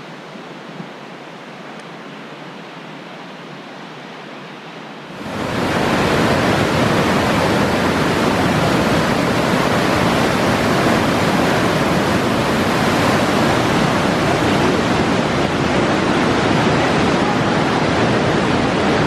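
Waterfall rushing: a steady roar of falling water that jumps suddenly louder and fuller about five seconds in.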